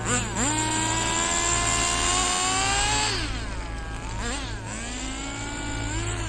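Small engine of a rear-wheel-drive radio-controlled drift car revving up and down: the pitch dips right at the start, climbs and holds for about three seconds, falls away, blips briefly, then climbs again and drops near the end.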